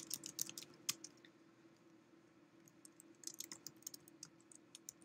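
Faint typing on a computer keyboard: a quick run of keystrokes, a pause of about a second and a half, then another run of keystrokes. A faint steady low hum sits underneath.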